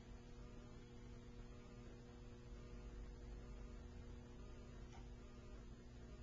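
Quiet room tone: a faint steady electrical hum over low hiss, with one faint tick about five seconds in.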